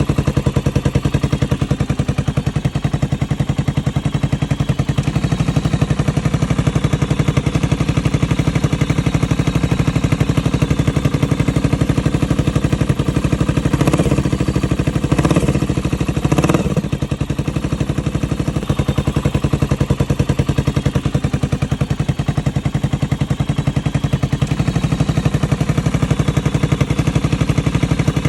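Honda CB400SS's air-cooled single-cylinder engine idling through an aftermarket Pretty Racing silencer with a steel-wool-wrapped baffle, a steady pulsing exhaust beat. About halfway through, the throttle is blipped three times in quick succession, each rev rising and falling back to idle.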